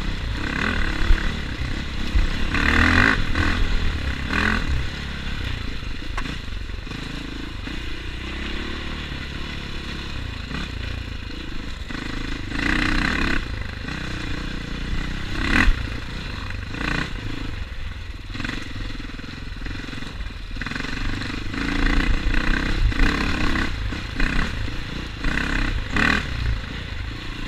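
Dirt bike engine heard from the rider's helmet camera on a rough forest trail. The throttle repeatedly opens and eases off, so the engine surges and drops back every few seconds over a steady low rumble.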